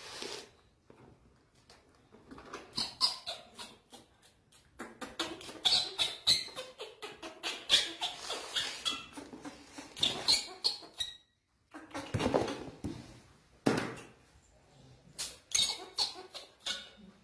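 Baby macaque crying in rapid clusters of short, high squeaky calls.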